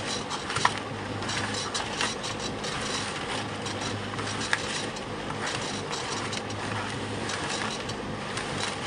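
Concrete mixer running steadily: a constant motor hum with the rattle and scrape of the turning drum, and scattered knocks and clicks, one sharp knock about half a second in and another near the middle.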